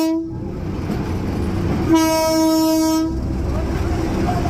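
Train horn: a blast that cuts off just after the start, then another steady blast of about a second beginning about two seconds in, held on one pitch, over the continuous rumble of the train running.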